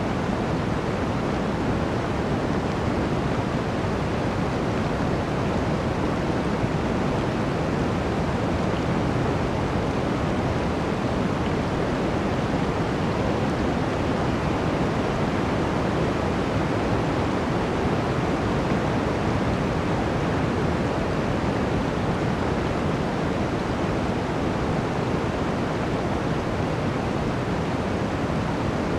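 Blizzard wind blowing through a forest: a steady, dense rush of wind with no gusts or breaks.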